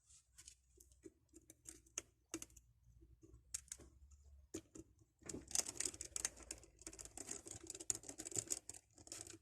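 Small precision screwdriver driving a tiny screw into a mobile phone's plastic frame: scattered light clicks and ticks, then from about halfway a denser run of rapid clicking and scratching as the screw is turned home.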